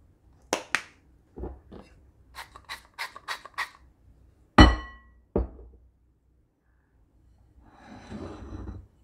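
A glass oil mister pumped over a bowl of popcorn in a quick run of about six clicking sprays. It is then set down hard on the countertop with a ringing glass clink, followed by a thud. Near the end the popcorn bowl is slid and lifted with a rustle.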